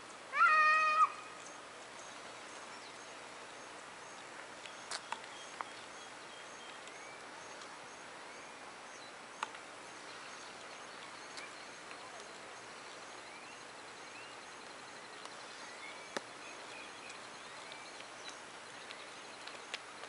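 A single loud, pitched animal call lasting under a second just after the start. It gives way to a quiet outdoor background with faint high chirps and a few sharp small clicks.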